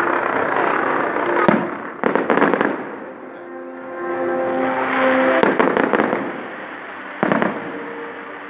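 Fireworks display: aerial shells bursting in sharp bangs, in groups about a second and a half in, around two seconds in, about five and a half seconds in and just after seven seconds. Crackling and hissing fill the gaps between the bangs.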